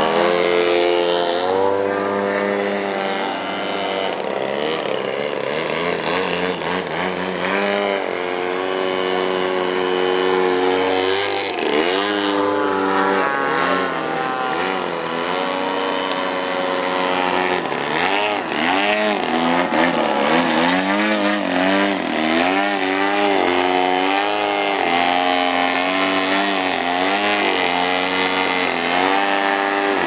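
Engines and propellers of several large radio-controlled aerobatic planes hovering together. Their pitches overlap and keep rising and falling as the throttles are worked to hold each plane nose-up in the hover.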